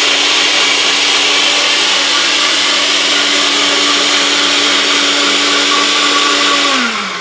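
NutriBullet personal blender running at full speed: a loud, steady whir with an even motor hum. Near the end the motor stops and winds down, its pitch falling away.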